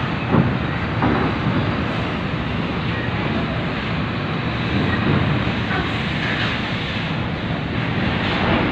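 Steady diesel engine noise as a large intercity coach drives up the steel bow ramp into a roll-on/roll-off ferry, over the ferry's own engine drone.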